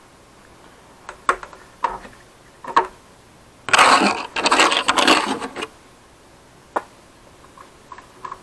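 Hard plastic clicks and clatter as an RC truck's body shell is set onto its quick-release mount and its clips snapped into place: three sharp clicks, then about two seconds of dense rattling, and one more click later on.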